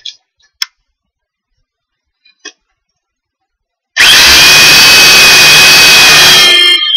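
A few light handling clicks, then a corded electric drill starts about four seconds in. It runs steadily at full speed, boring a pilot hole into wood, and winds down and stops near the end.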